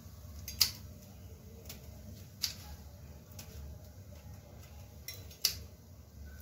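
Kitchen scissors snipping a green chilli into small pieces: a few sharp snips at uneven intervals, the loudest about half a second, two and a half and five and a half seconds in.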